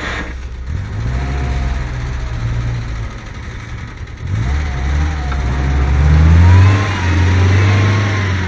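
An SUV's engine revving hard while the vehicle is stuck in mud and being pulled on a tow strap: one rev about a second in, then a second, longer and louder rev with a wavering whine over it.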